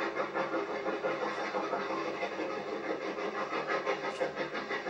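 Steam locomotive working, its exhaust beating in a steady rhythm of about four chuffs a second.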